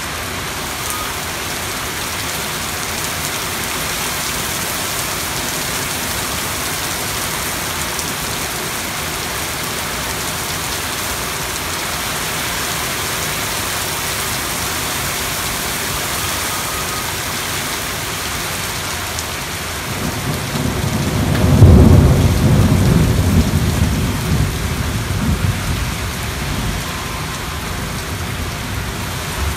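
Steady rain falling in a thunderstorm. About twenty seconds in, a thunder peal swells, cracks to a sharp peak and rolls away over several seconds.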